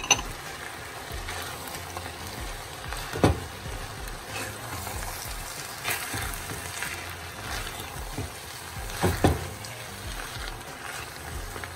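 Ground-beef and vegetable filling sizzling in a glazed clay cazuela while it is stirred with a silicone spatula, the celery and plantain just added to fry. A few sharp knocks of the spatula against the pot stand out, one about a third of the way in and two close together about three-quarters through.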